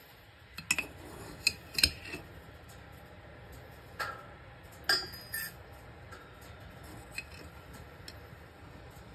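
A spoon and glass jars clinking and knocking against a metal mug and a wooden table while instant coffee is spooned out: a handful of separate clinks, with a longer ringing clatter about five seconds in.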